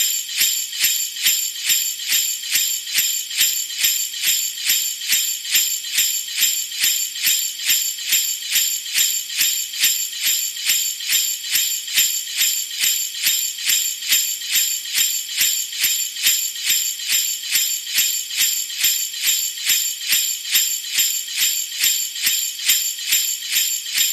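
Jingle bells shaken in a steady, even rhythm of about two shakes a second, a high metallic jingling that keeps going without a break.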